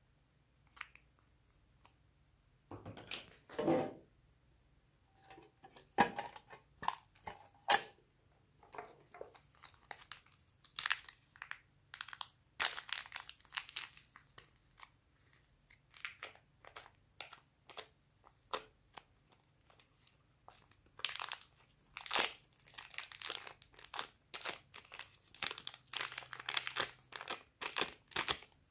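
Thin clear plastic bag crinkling, crackling irregularly as soft putty is squeezed out of it and pulled apart.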